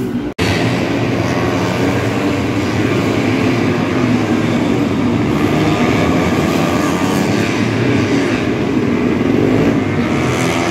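Several racing motorcycle engines running and revving together in a continuous, loud, wavering din. The sound cuts out for an instant just after the start.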